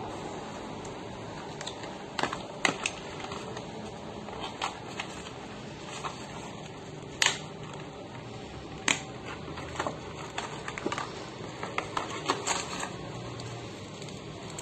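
Irregular sharp clicks and light crackles of a small cardboard medicine box and its packaging being handled and opened, the loudest clicks about seven and nine seconds in, over a steady low hiss.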